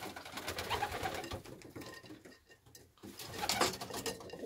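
Racing pigeons cooing, with scattered short clicks and rustles.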